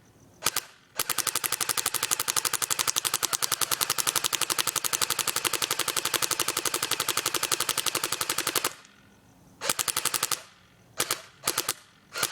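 Thompson submachine gun firing .45 ACP on full automatic: a single shot, then one long burst of rapid, evenly spaced shots lasting about seven and a half seconds, followed by a few short bursts near the end.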